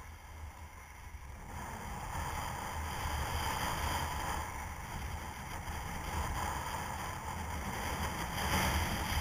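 Skiing downhill: wind buffeting the microphone over the hiss of skis sliding on groomed snow, growing louder about a second and a half in as speed builds.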